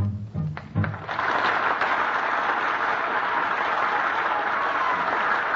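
A western string band, bass fiddle prominent, plays the final notes of a song, which end about a second in. A studio audience then breaks into steady applause.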